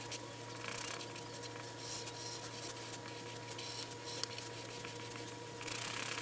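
Extra-fine-point Sharpie marker scratching across paper in many quick short strokes as pencil lines are inked over, over a steady low hum.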